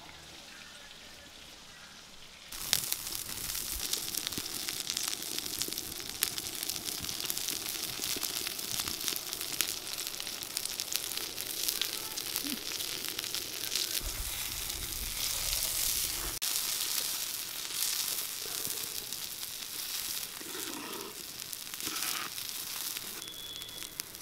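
Fish curry sizzling and bubbling in a pan over a wood fire, a dense steady crackle that starts abruptly about two and a half seconds in after a quieter moment.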